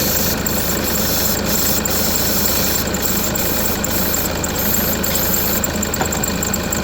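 Ford Mondeo Mk4 2.0 four-cylinder diesel engine idling steadily, with the noise of a bad tensioner.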